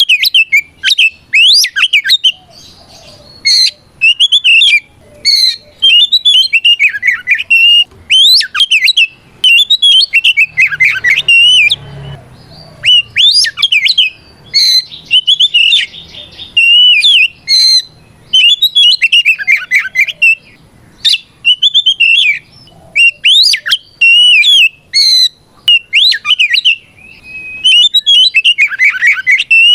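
Oriental magpie-robin (kacer) singing loud, rapid phrases of sweeping whistles and harsh notes, one burst after another with short gaps. This is the full, open-throated challenge song (ngeplong) that calls out a rival male.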